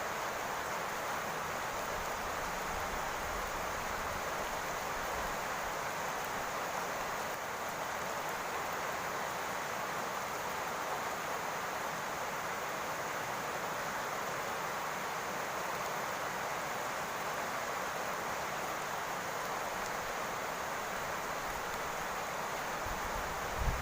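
Steady rain falling on a roof, an even hiss with no single drops standing out. A brief low thump comes at the very end.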